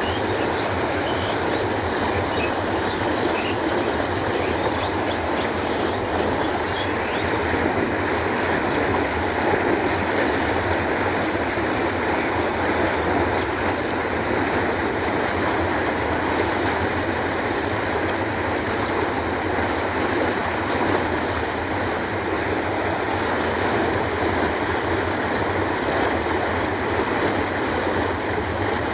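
Water in a village canal flowing steadily, a continuous rushing noise.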